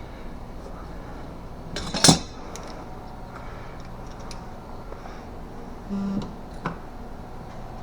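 Metal tools being handled in a garage: one loud metallic clank about two seconds in, later a short low buzz and a click, over a steady low hum.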